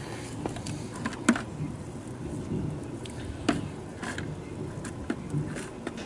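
Tumbled rocks being scooped out of a rubber rock-tumbler barrel into a plastic bucket: scattered sharp clicks and knocks of stones against the plastic scoop and bucket, about seven in all, over a steady low hum.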